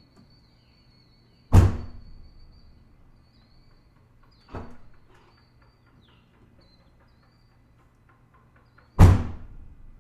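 2026 Volkswagen Jetta's trunk lid shut with a loud thunk about one and a half seconds in and again near the end, with a softer knock between.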